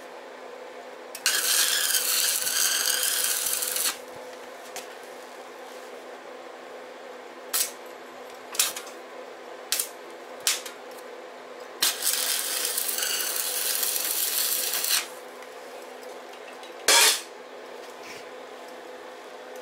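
Stick (arc) welding on a steel-tube motorcycle rear frame: two runs of crackling, hissing arc of about three seconds each, with several brief arcs struck in between and one more near the end. A steady low hum sits underneath.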